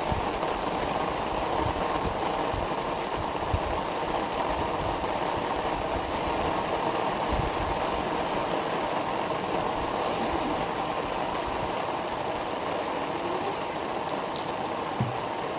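Steady rushing water, from rain or a stream, with a few soft knocks, the clearest near the end.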